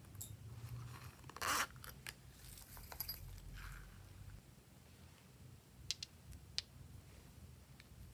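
Glossy slime being handled and mixed by hand: a short rasping rip about a second and a half in, then soft crackles and a few sharp clicks and pops.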